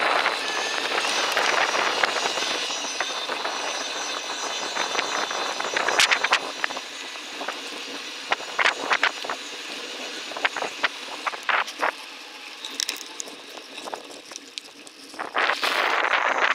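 Bicycle rolling along a woodland trail: a steady rush of tyre and wind noise with scattered irregular clicks and crackles, slowly fading, then swelling loud again near the end.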